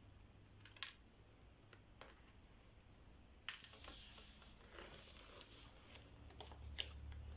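Mostly near silence, with a few faint clicks and a soft rustle about three and a half seconds in, from small decorations being handled and added to slime.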